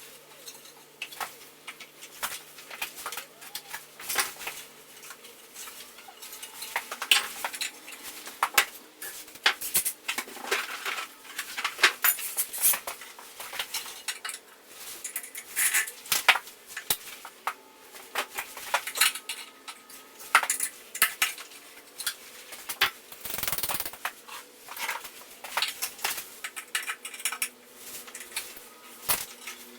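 Hand tools and metal parts clinking and clanking irregularly while a small 49cc two-stroke dirt bike is taken apart, with a short heavier scrape or rumble a little past the middle.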